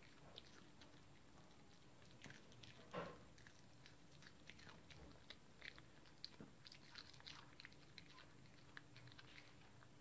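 A Chihuahua chewing a piece of raw cabbage leaf: faint, irregular crunching and clicking, busiest in the second half.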